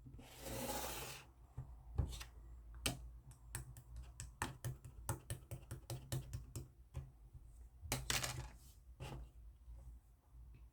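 Slime being squished and poked by hand: a run of small, sharp clicking pops, with a brief rustling hiss in the first second and another about eight seconds in.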